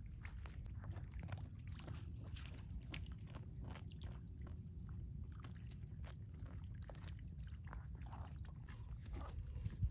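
A dead chicken being dunked and handled in shallow river water: irregular small wet splashes and crackles, over a low steady rumble.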